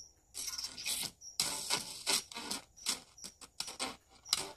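A small radio loudspeaker crackling and cutting in and out in irregular bursts, dropping to silence between them, as its broken tinsel lead wire is flexed. This is the sign of a bad contact in the speaker's tinsel lead.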